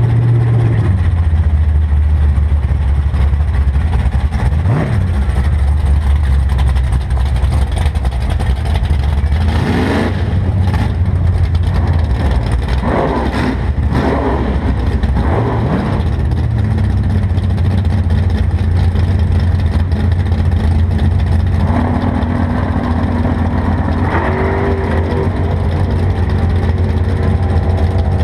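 Drag-race Corvette's V8 idling loud and steady right under the camera, with several brief revs in the middle. The engine note starts to climb at the very end.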